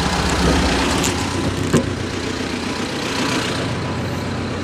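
T-40AM tractor's diesel engine idling steadily, with one sharp click a little under two seconds in.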